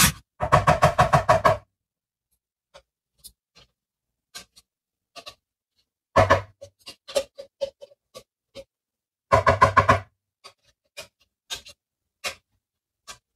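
A spoon tapping and scraping against a plastic blender cup, knocking out the last of a thick dressing: three quick rattling runs of taps, with single ticks between.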